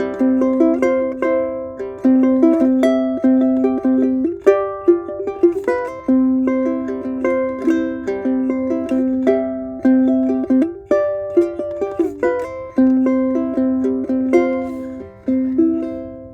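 Martin 3M dreadnought-style ukulele with Aquila black strings, fingerpicked: a quick melody of plucked notes over a repeated low note, in a small room. The last notes die away just before the end.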